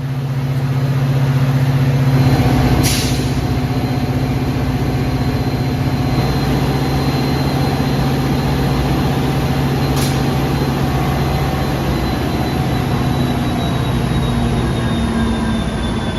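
Metra commuter train's diesel locomotive idling at the platform, a steady low drone with a faint high whine that slowly drops in pitch near the end. Two short hisses of released air, about three seconds and ten seconds in.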